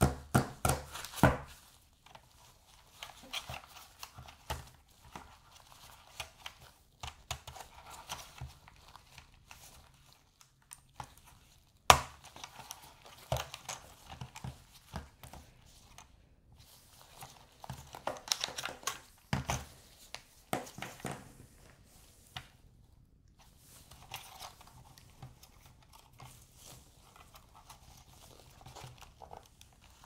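Hard plastic clicking, snapping and rustling as a folded DJI Mini 4 Pro drone is handled with latex gloves, its propeller storage cover unclipped and its arms and propellers swung open. The clicks come in clusters at the start and again near the end, with one sharp loudest snap about twelve seconds in.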